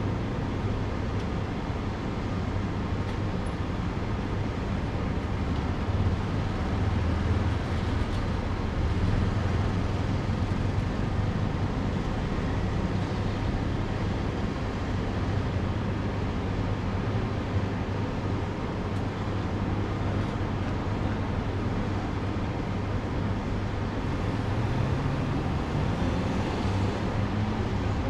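Steady street traffic noise with a low hum underneath. Near the end a van's engine rises in pitch as it pulls past.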